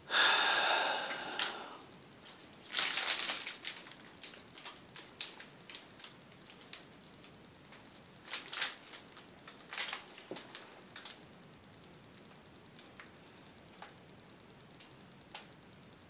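Crinkling and crackling of plastic with many small sharp clicks from handling. Loudest in the first three seconds, then sparser, scattered clicks that thin out after about eleven seconds.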